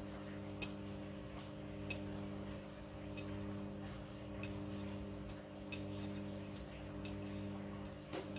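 Midea front-loading washing machine running with a steady hum, with a sharp click about every second and a quarter as the drum turns.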